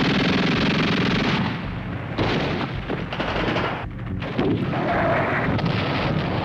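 Artillery shells exploding amid gunfire, a string of heavy blasts running together into a continuous din, dipping briefly about four seconds in.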